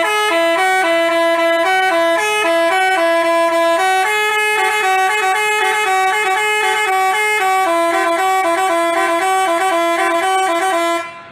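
Basuri telolet horn playing a quick melody of short, changing notes, several sounding together, then stopping abruptly near the end.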